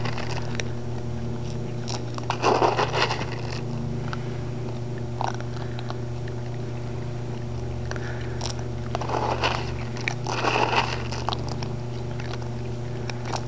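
Several raccoons chewing and crunching scattered food, in short bursts that are loudest about two to three seconds in and again about nine to eleven seconds in, over a steady low hum.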